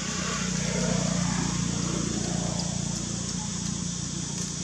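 A motor engine running: a low steady hum that swells about a second in and slowly eases off, over a steady high hiss.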